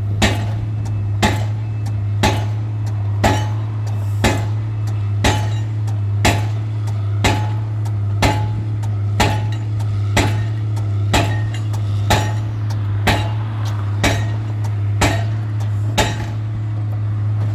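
Pile-driving hammer striking a pile at about one blow a second, with a steady low engine drone underneath. The blows stop about sixteen seconds in.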